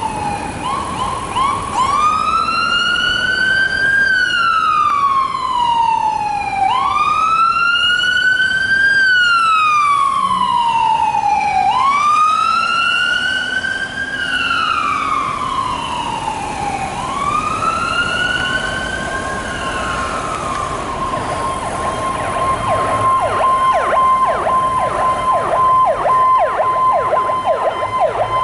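Emergency vehicle sirens: a wail siren rising fast and falling slowly about every five seconds, four times. About 20 seconds in it switches to a rapid yelping siren with a steady high tone alongside.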